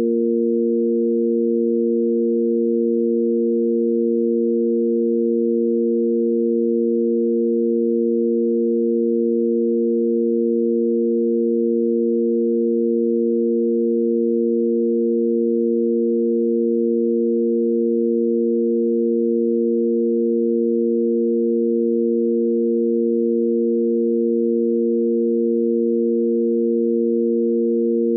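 Sine wave tanpura drone in A#: three steady pure tones on the root, fifth and octave, held unchanging.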